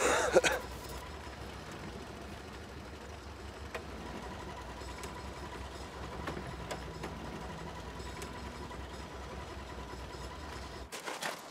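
A steady low mechanical hum with a thin, even whine above it, running unchanged until it cuts off abruptly just before the end.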